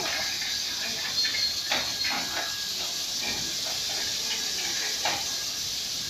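Touchless car wash spraying foam onto a car: a steady hiss from the spray nozzles, with scattered mechanical clicks and knocks.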